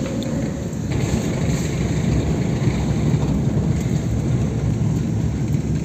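Steady low rumble of a car being driven slowly, engine and tyre noise heard from inside the cabin.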